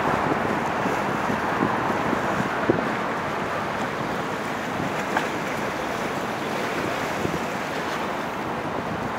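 Steady wash of wind and harbour water, with wind buffeting the microphone and a couple of small knocks.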